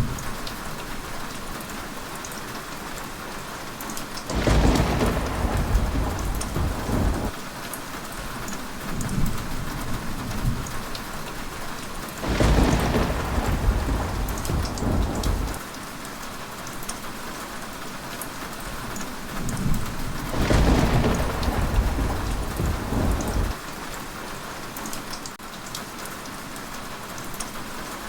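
Heavy rain falling steadily, with three rolls of thunder about eight seconds apart, each rumbling for about three seconds.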